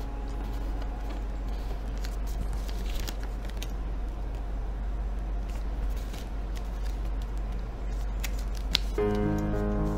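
A sheet of origami paper rustling and crinkling as it is handled and folded by hand, with scattered short crackles and creases over a steady low hum. Background music comes back near the end.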